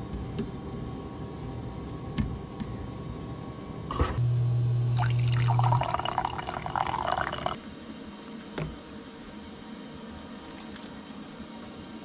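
Water poured from a kettle spout into a ceramic mug, a splashing pour lasting a couple of seconds and ending with a clunk. Just before the pour there is a click and a brief low hum.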